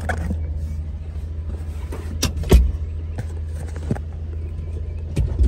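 1993 Suzuki Carry mini truck's 650 cc engine running, heard from inside the cab as a steady low hum. A few sharp knocks and clicks come through, the loudest about two and a half seconds in.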